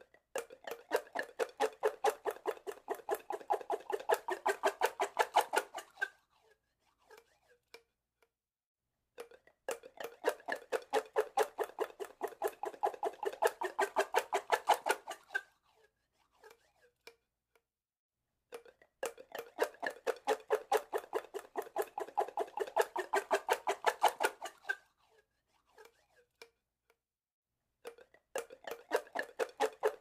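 A drinking straw squeaking in rapid repeated strokes, about five squeaks a second. The squeaks come in runs of about six seconds with pauses of about three seconds: three full runs and the start of a fourth near the end.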